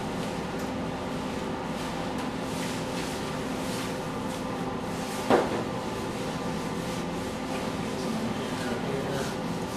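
Faint taps and rustles of ground spice being shaken from a small jar onto a raw chicken and rubbed in, over a steady background hum. One sharp knock about five seconds in is the loudest sound.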